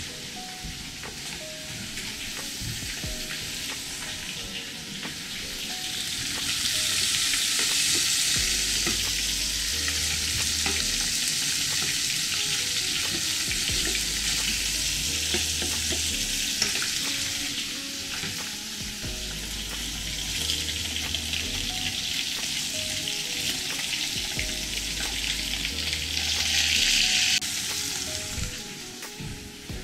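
Chopped onions sizzling as they sauté in a little hot oil in a pot, stirred now and then with a spoon. The sizzle grows louder about six seconds in and swells briefly near the end.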